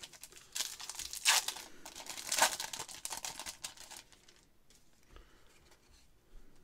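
A 2023 Stadium Club baseball card pack's wrapper being torn open and crinkled by hand, with the crackling loudest in the first few seconds and dying away by about four seconds in.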